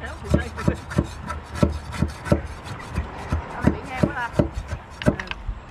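Quick irregular knocks with some scraping, about four a second, over a low rumble.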